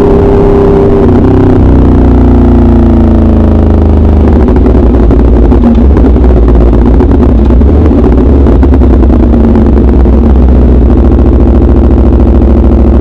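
Motorcycle engine through an SC Project aftermarket exhaust, loud, under way: the revs drop about a second in and wind down over the next few seconds, then rise and fall again.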